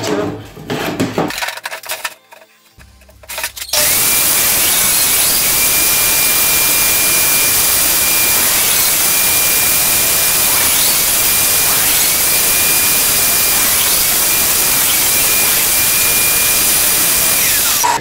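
Bench table saw starting up about four seconds in and running loudly as OSB board is fed through it; its high whine dips and recovers several times as the blade takes the cut. Before it starts, a few knocks of boards being handled.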